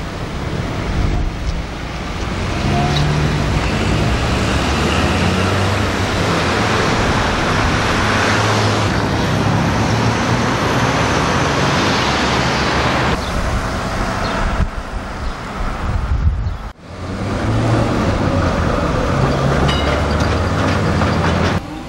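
Road traffic and a tram going by on a street with tram tracks: a steady traffic noise with a loud passing swell in the middle, broken off abruptly twice.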